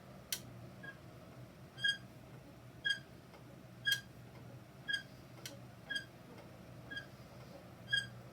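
Peloton exercise bike squeaking: a short, high chirp repeating evenly about once a second, over a faint low hum. Once or twice a sharp click also sounds.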